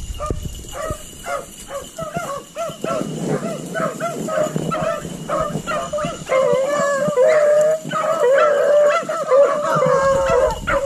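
Pack of beagles baying on a rabbit's scent: a quick run of short barks, then from about six seconds in several dogs giving long, overlapping howls, louder.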